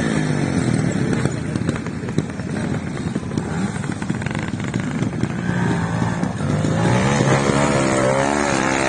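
Trials motorcycle engine running at low revs with repeated throttle blips, its pitch rising and falling, more often in the last few seconds, as the bike is ridden over steep ground.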